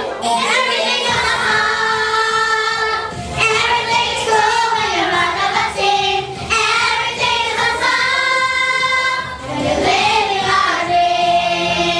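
A group of children singing together in long held notes that change pitch every second or two.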